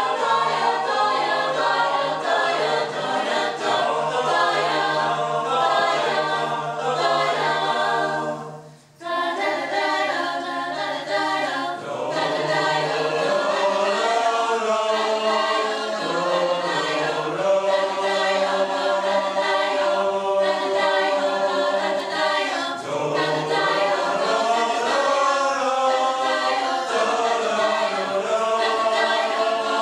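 Mixed choir of men and women singing a cappella in several parts, with a low held note under the melody for the first stretch. The singing stops briefly about nine seconds in and then picks up again.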